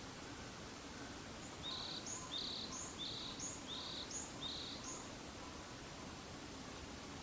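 Varied tit singing: a clear two-note whistle, a lower note followed by a higher one, repeated about five times in quick succession over roughly three and a half seconds, against steady outdoor background hiss.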